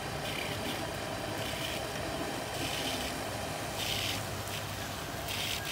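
Electric motor belt-driving a pond water pump, running with a steady hum, with a few brief hisses over it.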